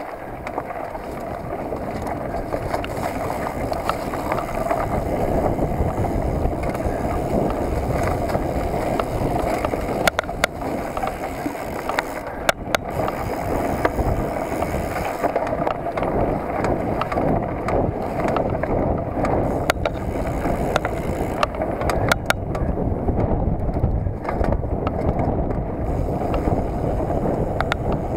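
Mountain bike rolling along a dirt forest trail: a steady rumble of knobbly tyres on the ground and a rattling bike, with occasional sharp knocks over bumps, picked up by a camera mounted on the bike.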